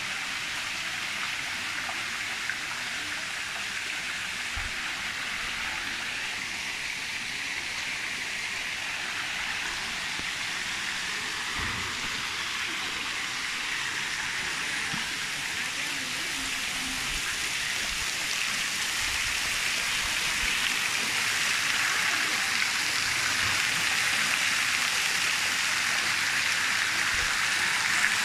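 Steady rush of running, splashing water, growing louder through the second half as water pouring into a stone pond comes near.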